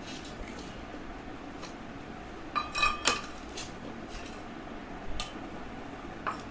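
Cutlery clinking against dishes while eating: a few scattered clinks, the loudest pair about halfway through with a brief metallic ring.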